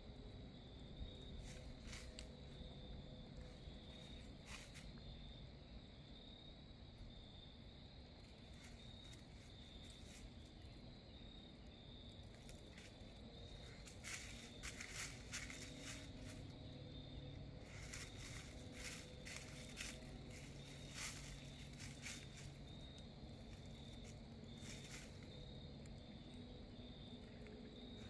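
A dog's paws rustling and crunching in dry fallen leaves as it noses about, in scattered crisp crackles that come thickest about halfway through and again a few seconds later. A faint, steady, high trill runs underneath.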